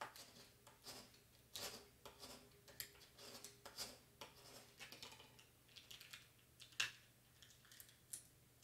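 Hands pressing and rubbing vinyl transfer tape onto a chalkboard sign: faint crinkling and rustling with scattered light clicks, and one sharper tap about two-thirds of the way in.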